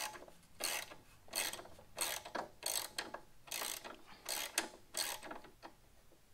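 Hand socket ratchet clicking in repeated back-and-forth strokes as it turns a bolt on the motorcycle frame. About eight runs of rapid clicks come roughly one every 0.7 seconds, trailing off into a few faint ticks near the end.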